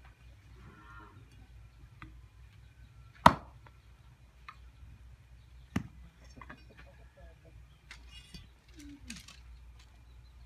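Machete chopping thin bamboo stems against a block: two sharp chops, the louder about three seconds in and another near six seconds, with a few lighter taps between.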